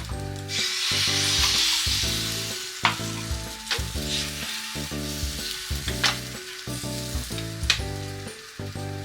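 Food sizzling in a frying pan, loudest in the first two seconds and then settling to a softer hiss, with a few sharp clicks of a utensil. Soft background music with piano-like notes plays underneath.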